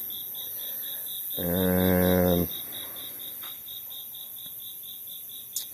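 A cricket chirping steadily in a high, even pulse, about five chirps a second. About a second and a half in, a person's voice holds a drawn-out hum for about a second, and a couple of faint clicks come later.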